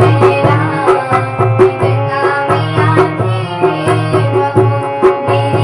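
Hindi devotional bhajan music: a steady drum beat with a low thumping pulse under a melodic instrumental line.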